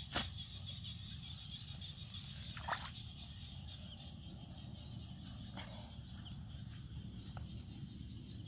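A metal pipe strikes the mud bank once with a sharp knock just after the start, followed about two and a half seconds later by a softer short sound. A steady low outdoor rumble and a faint high hiss run underneath.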